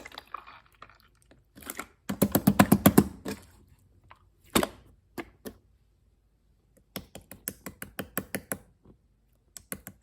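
Clear slime being squished and pressed by hand, giving runs of sharp clicking pops. The loudest and fastest run comes about two seconds in, with scattered clicks after it, a short pause, and another run of clicks late on.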